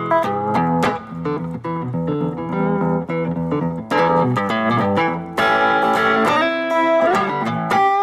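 Guitar music: a quick run of plucked guitar notes.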